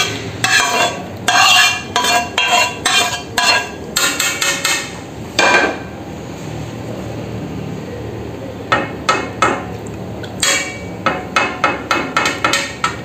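A metal spoon and a wooden haleem masher knock against the rims of a wok and an aluminium cooking pot while fried onions are scraped into the haleem. There are sharp knocks about twice a second for the first five seconds, a quieter pause, then a quicker run of knocks from about nine seconds in.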